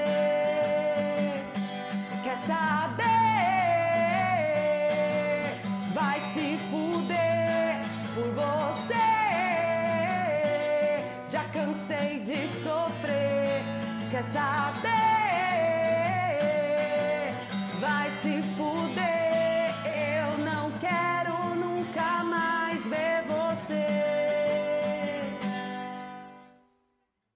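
Acoustic guitar strummed under a woman's singing voice, with the voice bending between held notes. The song fades out quickly near the end.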